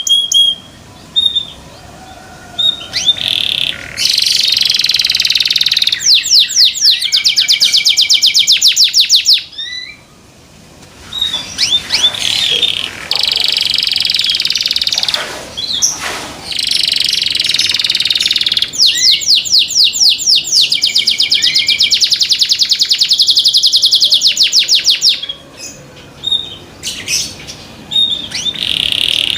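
Domestic canary singing loudly in long song phrases, with fast rolling trills several seconds long and a short pause in between.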